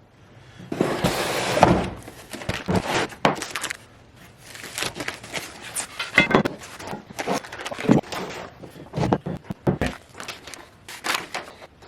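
Irregular metal clanks, knocks and rattles of parts and hand tools being handled, with a short rustling burst about a second in.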